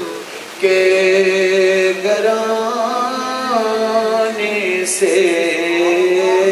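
A man's voice singing a devotional song into a microphone, entering about half a second in with long, drawn-out notes that waver and slide in pitch.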